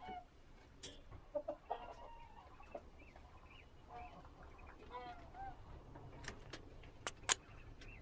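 Chickens clucking, a few short calls here and there, with two sharp clicks near the end.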